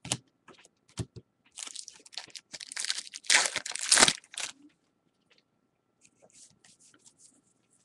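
A 2013 Bowman baseball card pack being torn open, its wrapper crinkling loudest for a couple of seconds, with a few clicks before and faint light handling ticks after.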